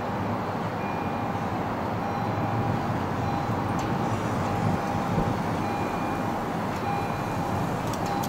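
Diesel commuter train approaching with a steady low rumble. A faint tone sounds in short spells again and again through it.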